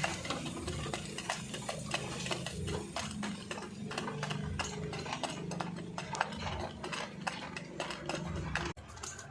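Pigeons and doves pecking at grain feed, a dense irregular clicking, with low cooing underneath.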